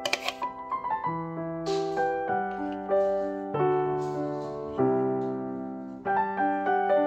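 Background piano music: sustained chords and single notes, changing about once a second.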